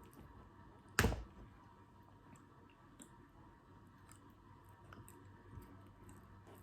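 Faint close-up mouth sounds of eating a frozen chocolate-covered strawberry: small wet clicks while chewing, with one sharp knock about a second in.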